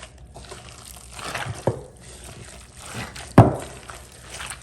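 Hands squishing and working a wet meat filling of tomato, onion and lime juice in a bowl, with a few short knocks and one sharp, loud thump about three and a half seconds in.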